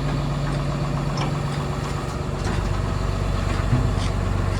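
A truck engine idling with a steady low hum, and a few faint clicks and knocks over it.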